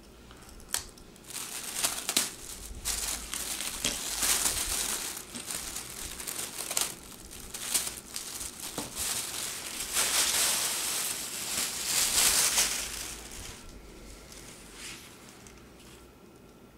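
Clear plastic packaging bag crinkling and rustling as it is worked off a packaged terrarium screen top. It is loudest from about ten to thirteen seconds in and dies down near the end.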